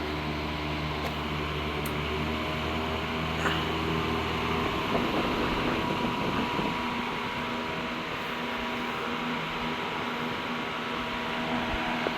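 Vintage 16-inch electric table fan running on high, its motor humming steadily with air rushing off the blades. About five seconds in the hum changes and settles at a new pitch as the motor picks up speed.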